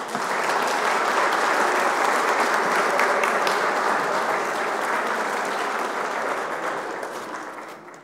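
Audience applauding steadily, then dying down near the end.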